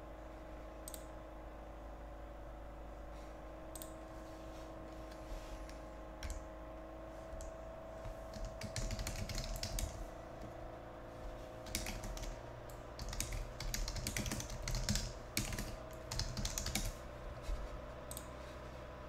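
Typing on a computer keyboard: a few scattered key clicks, then dense bursts of typing through the second half, over a steady faint electrical hum.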